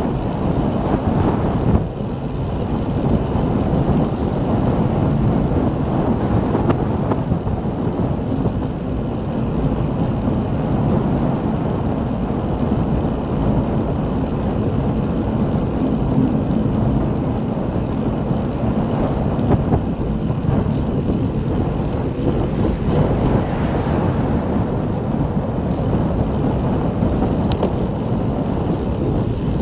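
Steady wind noise on the microphone of a camera on a moving bicycle, a low, even rumble.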